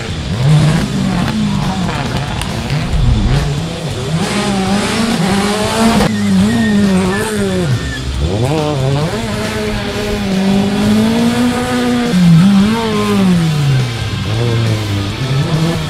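Peugeot 208 rally car's engine revving hard on a shakedown climb, pitch rising and falling again and again with throttle lifts and gear changes, then dropping low near the end as it brakes into a hairpin, with tyre squeal.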